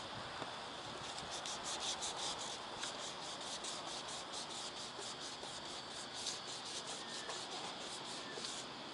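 Hand-sanding the painted roof of a Toyota Coaster bus, the sandpaper rasping in quick back-and-forth strokes, several a second, as the old paint is sanded back for repainting.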